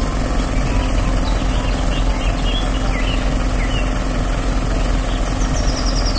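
Truck-mounted aerial work platform's engine running steadily at idle while the boom slowly raises the basket, a constant hum. Birds chirp briefly over it.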